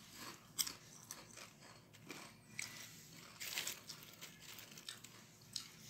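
Faint, irregular crunching and rustling of potato chips as they are picked from a plate and eaten, with a sharper crackle about half a second in and a cluster of crackles around three and a half seconds.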